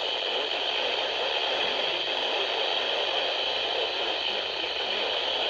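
Steady hiss of radio static from an off-air radio reception, with no voice on the channel.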